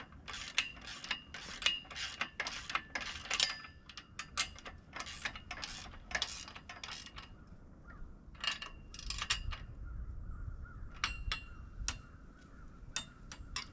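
Metal clicks and clatter from working the bolts and fittings of a miter saw stand during assembly, in dense runs for the first seven seconds and again near the end. A low rumble comes in between about nine and twelve seconds.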